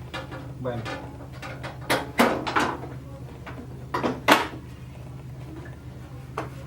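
Hard clacks and knocks from the Korg N364 keyboard's casing being handled and fitted back together, in two short clusters about two and four seconds in, over a steady low hum.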